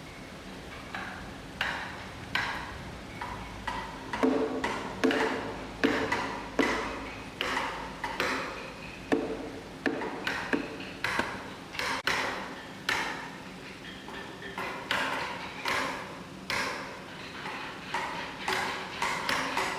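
Repeated hammering at an uneven pace, roughly one to two blows a second, each blow ringing briefly. The blows begin lightly about a second in and grow heavier a few seconds later.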